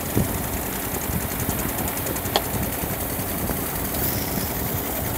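Engine-driven water pump running steadily, feeding a hose whose jet of water sprays and splashes over mud-covered stone steps. A single short sharp click sounds a little before halfway.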